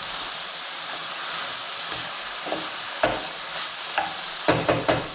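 Food frying in a hot pan: a steady sizzle, with a few short knocks and scrapes of a utensil against the pan about three seconds in and again near the end.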